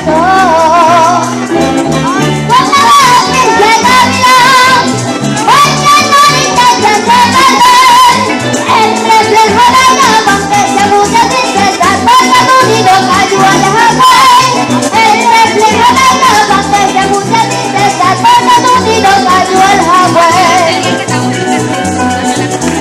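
Venezuelan llanero music in entreverado rhythm: a harp plays a busy ornamented melody over a steady bass, with maracas shaking throughout.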